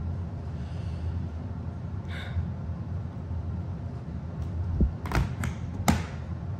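A low steady hum, with a handful of short sharp knocks and clicks clustered about five to six seconds in.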